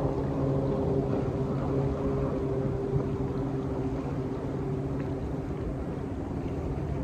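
Motorboat engine running steadily out on the river, an even low hum that eases off slightly near the end.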